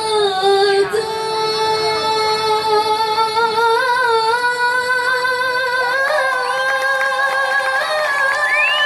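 A young girl singing unaccompanied, holding long, slightly wavering notes with melodic ornaments.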